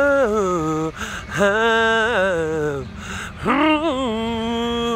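A voice singing long, wavering held notes without clear words, in three phrases: the first ends about a second in, the second follows shortly after, and the third starts past halfway.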